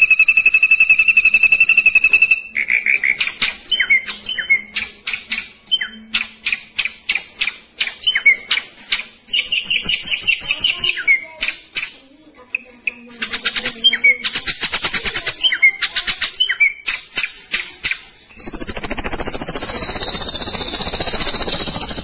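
Ashy drongo singing a fast, varied song: a rapid steady trill at first, then a long run of sharp, quick call notes, and a loud buzzy rapid trill over the last few seconds.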